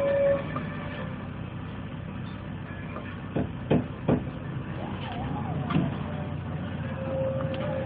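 Inside a city bus rolling slowly down a steep, narrow road: steady low engine and road rumble, with three sharp knocks close together a little before halfway and a thin steady whine near the end.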